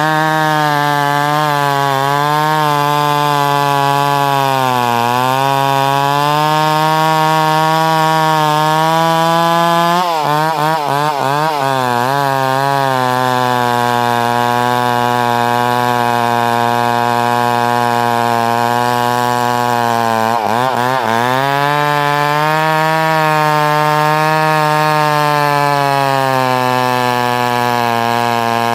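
Chainsaw engine running at high revs while cutting wood. Its pitch sags as the chain bogs in the cut about five seconds in, wavers for a few seconds around the middle, and drops sharply about two-thirds of the way through before picking back up.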